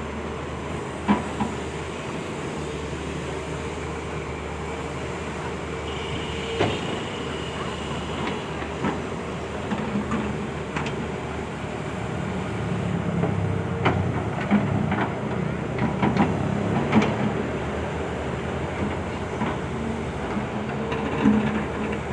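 Volvo excavator running steadily at work, its engine drone broken by sharp metallic clanks from the bucket and arm now and then, coming thicker about midway and again near the end. A brief high tone sounds about six seconds in.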